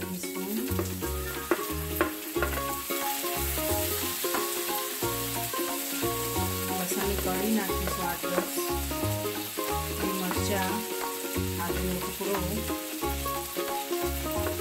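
Onions, tomatoes and whole spices sizzling as they fry in hot oil in a pan, with a few knocks of a wooden spoon scraping more ingredients in. Background music with a steady bass beat plays over it.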